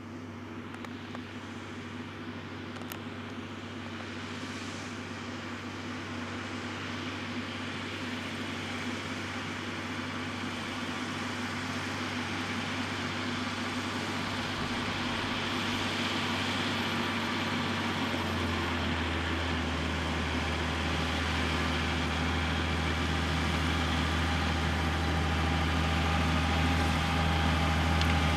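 Tractor diesel engine running steadily and growing louder throughout as it comes closer, its low note stepping up about two-thirds of the way through.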